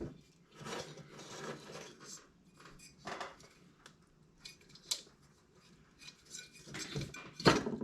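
Metal tools and parts of a diesel heater clinking, rattling and scraping as the heater is taken apart, in scattered short bursts with a louder clatter near the end.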